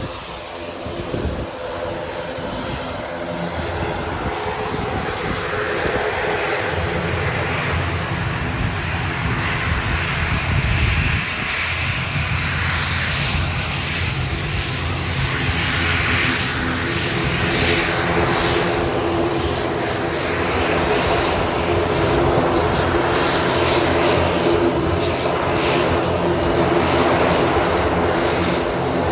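ATR 42-600 twin turboprop running its Pratt & Whitney PW127 engines as it arrives, a steady propeller drone and turbine hiss that grows gradually louder as the aircraft draws closer.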